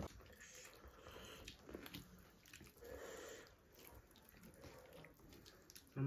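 Near silence with faint eating sounds: quiet chewing and a few soft clicks of fingers picking through rice and chicken.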